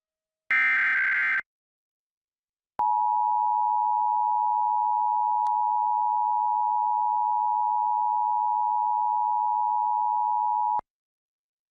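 Emergency Alert System header and attention signal. First comes a one-second screeching burst of SAME header data, the last of the repeated header bursts. After a short pause, the steady two-tone EAS attention signal sounds for about eight seconds and cuts off suddenly, announcing that an alert message follows.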